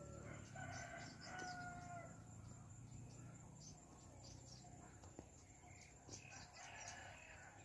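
A rooster crowing faintly: one drawn-out, steady-pitched crow in the first two seconds, over a low steady rumble.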